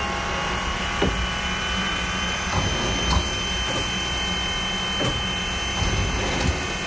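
Sierra Railway No. 28, a Baldwin 4-6-0 steam locomotive, standing with steam up: a steady mechanical hum and hiss with some steady high whining tones. A few light clicks come through now and then.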